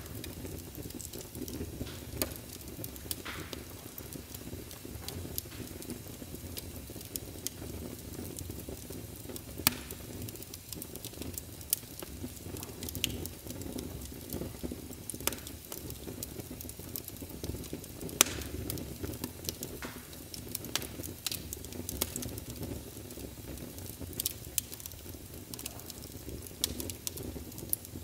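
Irregular crackling: scattered sharp pops and ticks over a low, steady rumble.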